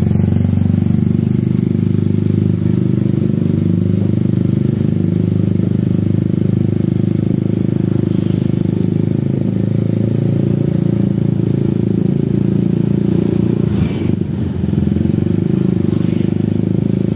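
Motorcycle engine running steadily while riding along. Its level dips briefly about fourteen seconds in.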